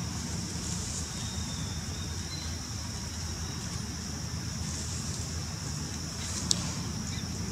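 Steady background noise: a low rumble with a high hiss over it, and one sharp click about six and a half seconds in.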